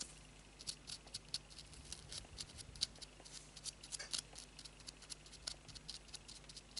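Art marker tip dabbing and rubbing on a crocheted flower centre: an irregular run of faint, sharp little clicks and scratches, several a second.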